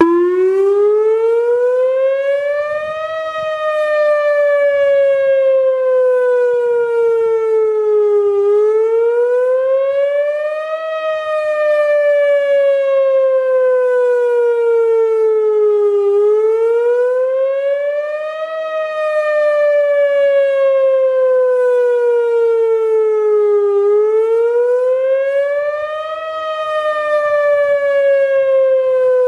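Whelen OmniAlert OA-2 electronic outdoor warning siren sounding its wail tone in a test, starting abruptly. The loud, rich tone sweeps up in pitch for about three seconds and down for about five, over and over.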